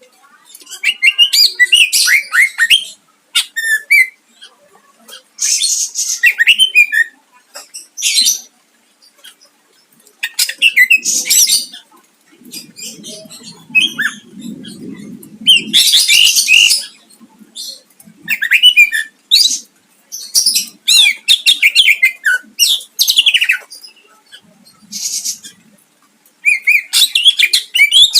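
A cucak ijo (green leafbird) singing a loud, rapid, varied song in bursts of one to two seconds with short pauses between them, mixing quick trills, chattering runs and sharp whistled notes.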